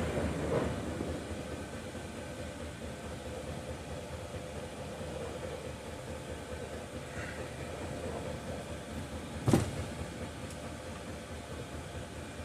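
Steady background machine hum and hiss, with one sharp knock about nine and a half seconds in.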